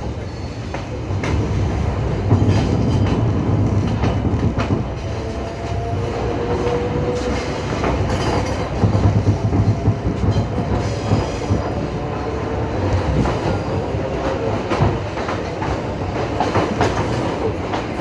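Train wheels clattering over rail joints as the train runs along, with a faint high wheel squeal midway through.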